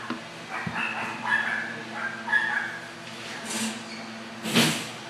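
A puppy whining with a run of short, high-pitched yips, then one louder, sharper cry near the end.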